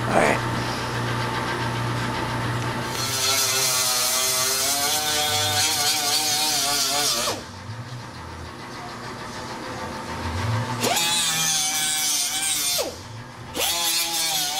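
Handheld power tool run in bursts at metal bodywork: it spins up to a high, wavering whine over a hiss, winds down with a falling pitch, and starts again twice. A low steady hum comes before the first start.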